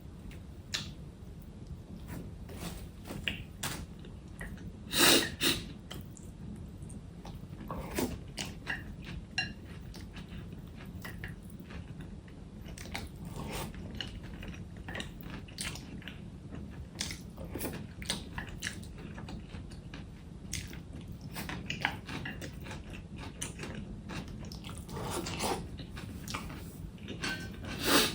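Close-up chewing and biting of food, with scattered short crunches and clicks; the loudest bites come about five seconds in and again at the end.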